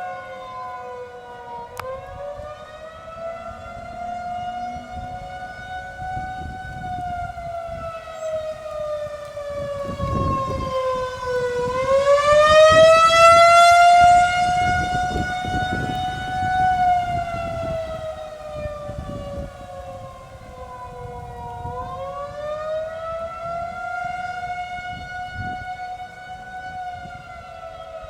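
Outdoor tornado warning siren wailing, its pitch rising and falling in slow cycles about ten seconds apart. It swells loudest about twelve seconds in.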